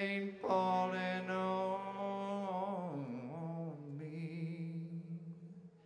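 Male singer holding a long sung note with vibrato, then sliding down to a lower held note about halfway through, which fades away near the end.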